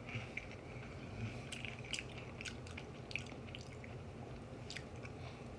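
A person chewing wavy Pringles potato crisps with the mouth close to the microphone: a run of small, irregular crunches.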